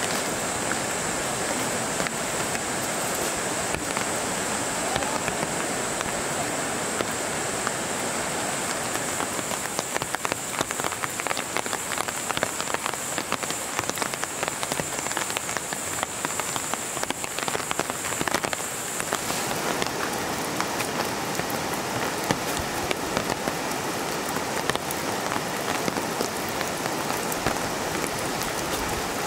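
Steady rain falling, an even hiss full of small drop taps. A thin, high steady sound above the rain stops about two-thirds of the way through.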